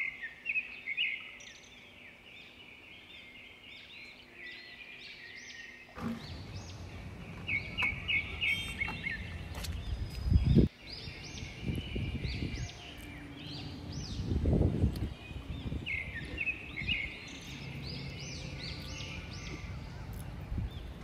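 Birds chirping in quick, continuous runs of short rising-and-falling notes. From about six seconds in a low rumbling noise joins them, with two louder low bursts.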